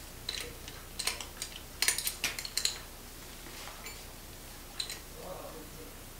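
Irregular sharp metallic clicks and clinks, bunched together about two seconds in, with a single one near the end: a wrench working the nut at the base of a kids' trampoline's handlebar.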